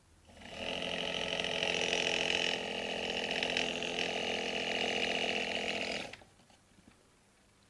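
A motor in a Samsung washing machine running steadily for about six seconds, then stopping abruptly.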